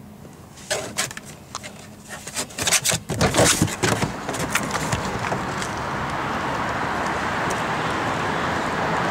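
Clicks and knocks of a car door being opened and someone climbing out, followed by steady outdoor street noise that slowly grows louder.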